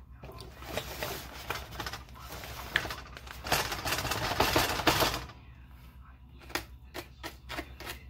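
Disposable aluminium foil baking pan shaken on the stovetop, a crinkly rattling that runs for about five seconds to settle the cake topping evenly, then stops; a few separate sharp taps follow.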